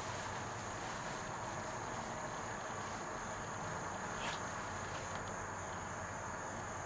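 A plastic DVD case knocking once about four seconds in as it is pulled from a shelf, over a steady hiss with an even high-pitched whine.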